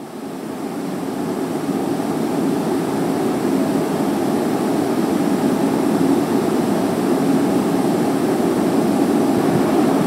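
Steady low rushing background noise with no distinct events, swelling up over the first two seconds and then holding even.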